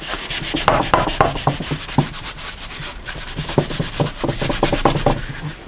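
A cloth wetted with white spirit rubbed hard back and forth over a cast steel lump hammer head resting on a wooden board: quick, repeated scrubbing strokes cleaning grease and grime off the steel.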